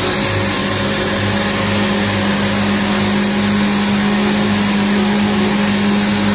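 Krone Big X 650 forage harvester cutting standing cereal with its X-Disc header, its engine and chopper running in a loud, steady drone with a low hum. The tractor towing the trailer alongside runs with it.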